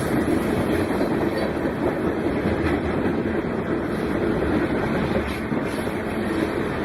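BNSF train rolling past on the rails: steady, unbroken wheel-and-rail noise with no horn sounding.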